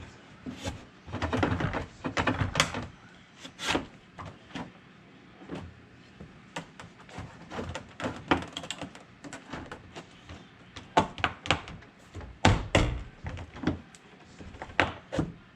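Plastic interior door trim panel of a Chevrolet Silverado being pried off its door: irregular clicks, knocks and creaks as the panel and its clips are worked loose, with a cluster of louder knocks late on.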